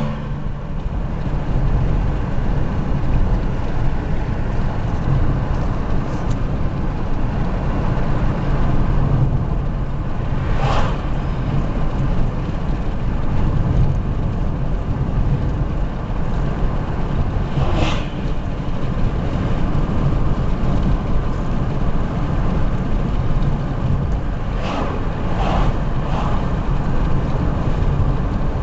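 A car driving along a road, with a steady low rumble of engine and tyres and a few brief louder swells as other sounds pass.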